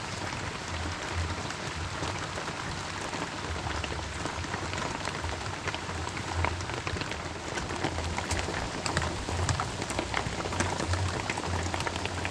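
Heavy rain falling steadily, with many individual drops striking close by as sharp ticks, over a low, uneven rumble.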